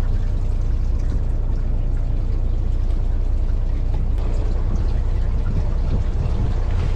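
A fishing boat's engine running steadily with a low rumble, under an even wash of water and wind noise.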